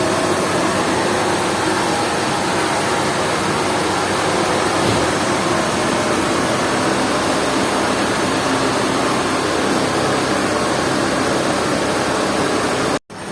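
Sawmill machinery running with a steady, even mechanical noise, cutting off abruptly near the end.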